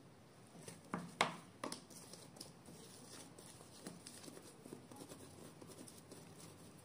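Plastic dough scraper cutting through pizza dough and knocking on the countertop: three sharp taps about a second in. Then faint soft pats and rubbing as the dough is rounded into a ball by hand.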